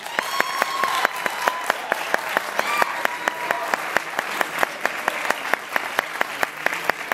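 Audience and performers applauding: many hands clapping steadily and quickly after an award announcement.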